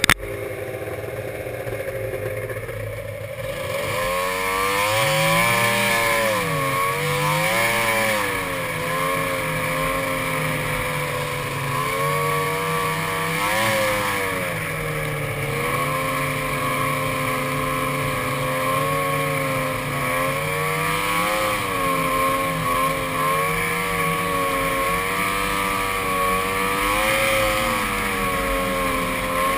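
Arctic Cat ZRT 600 snowmobile's three-cylinder two-stroke engine, running softly for the first few seconds, then pulling away about four seconds in. Its pitch rises and falls over and over as the throttle is worked along the trail.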